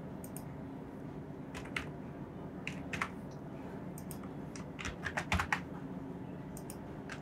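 Computer keyboard being typed on in short bursts of a few keystrokes each, over a low, steady background hum.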